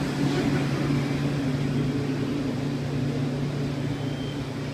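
Steady low hum of building machinery, with a noisy wash over it.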